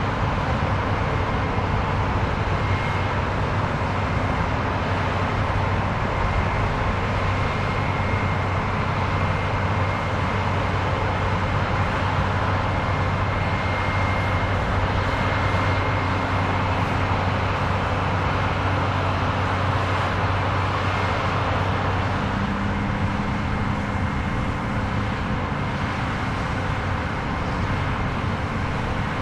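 Case IH AF10 combine with a 16-row corn head harvesting corn, running steadily with a low hum and a faint high whine that comes and goes.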